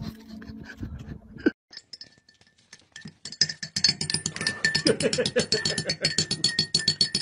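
Metal teaspoon clinking rapidly and steadily against a ceramic mug as a monk parakeet stirs it, starting about three seconds in, with a faint ringing from the mug.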